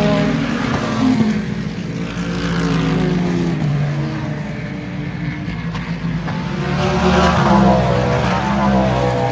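IMSA race cars passing one after another at speed, each engine note rising and falling as it goes by, with the loudest pass about three quarters of the way through.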